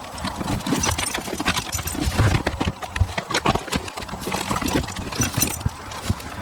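Irregular plastic clicking, tapping and knocking as hands work at the clips of a wiring connector on the back of a car's instrument cluster, with a faint low steady hum underneath.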